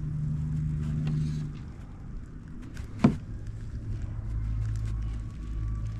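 A low, steady engine hum whose pitch drops about halfway through, with one sharp click about three seconds in.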